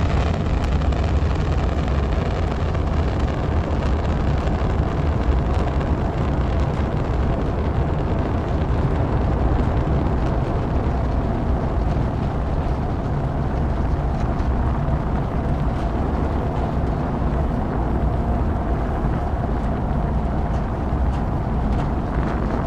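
Space shuttle launch: the rocket engines running at full thrust as one steady, deep, rough rumble that holds an even loudness throughout.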